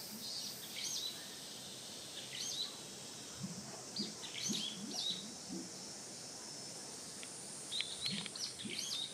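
Small birds chirping in clusters of short, quickly rising and falling calls: about a second in, around two and a half seconds, four to five seconds in, and again near the end, over a steady background hiss.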